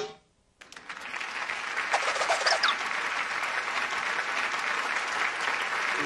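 Cartoon audience applause, fading in about half a second in and then holding steady. It follows the very end of a comic hiccup sound effect that cuts off at the start.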